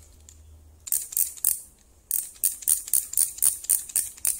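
Digital micrometer's ratchet thimble clicking as it is turned down onto a thin metal strip: a few clicks about a second in, then a quick steady run of about six clicks a second from about two seconds in. The clicks are the ratchet slipping as the spindle seats on the strip at measuring pressure.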